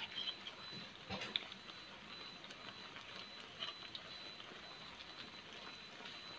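Batter-coated tempeh deep-frying in oil in a wok: faint sizzling with scattered small crackles, and a few clicks of the spatula against the wok about a second in.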